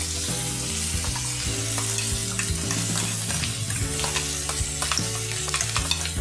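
Potato wedges and drumstick pieces sizzling in hot mustard oil in a kadai as a ground spice paste is spooned in, with many small clicks and scrapes of a spoon against a steel bowl.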